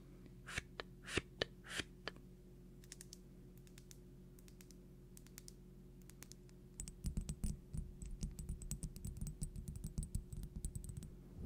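Close-miked ASMR trigger sounds: a few soft breathy hisses, then sparse faint clicks, then from about seven seconds in a dense, irregular patter of light taps and crackles, like fingertips tapping and brushing on the microphone.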